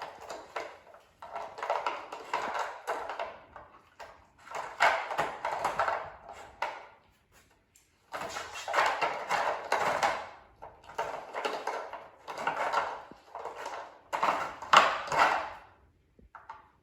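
Dogs working at a plastic treat-puzzle toy, lifting and pushing its covers: repeated bursts of clattering and scraping, each a second or two long, with short pauses between.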